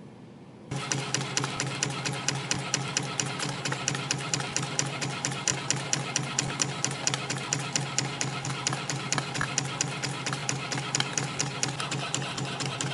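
CNC spring coiling machine running, coiling 0.7 mm wire into variable-pitch compression springs. It starts abruptly under a second in, then runs with a steady low hum and a fast, even clicking of about five strokes a second, one per spring made at 300 pieces a minute.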